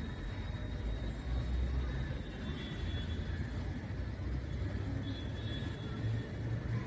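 Steady, fluctuating low outdoor rumble with no music or speech.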